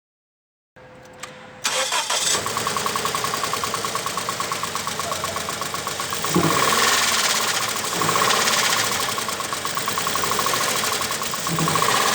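Toyota 86 / Subaru BRZ flat-four engine starting about a second and a half in, then running with a fast, even knocking. It is a noise that appeared after an engine overhaul, which the owner suspects is rod knock, heard from around the intake manifold. The level swells a few times.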